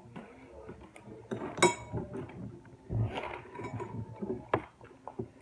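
Table eating sounds: a spoon clinks once against a dish with a brief ring about one and a half seconds in, amid scattered small clicks and knocks of cutlery and dishes.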